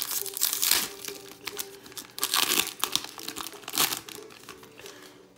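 Foil wrapper of a Japanese Pokémon card booster pack crinkling in irregular crackly bursts as it is handled and torn open by hand.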